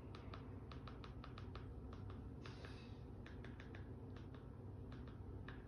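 Faint, light clicks in irregular quick clusters, with a short hiss about two and a half seconds in.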